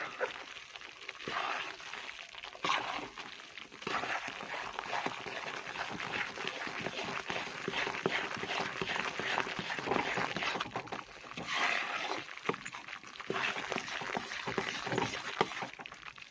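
A spatula stirring and scraping gram flour (besan) as it roasts in ghee in a kadhai: a continuous run of small scrapes and clicks, stirred constantly to keep the flour from sticking and scorching.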